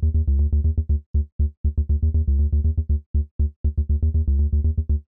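Electronic music of short, clipped synthesizer notes over a heavy bass, chopped into a fast stuttering rhythm.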